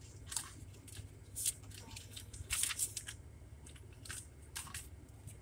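Paper and packaging being handled, crisp rustles and crinkles in a string of short bursts over a steady low hum.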